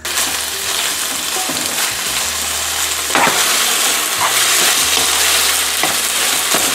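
Salmon pieces sizzling in a little oil in a non-stick frying pan, stirred with a wooden spoon that scrapes and knocks against the pan a few times.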